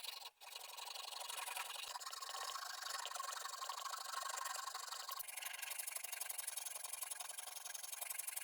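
Steady abrasive rubbing, as of sanding or rasping by hand, with a short break about a third of a second in and a brighter, harsher stretch from about five seconds in.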